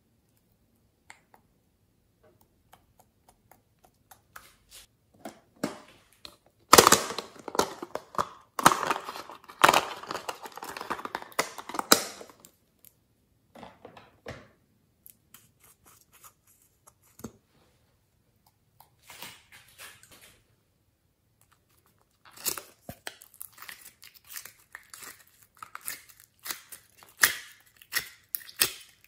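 Hands handling small plastic makeup containers: clusters of sharp clicks and rustling, scraping handling noise, busiest about a quarter of the way in and again over the last quarter, with quiet gaps between.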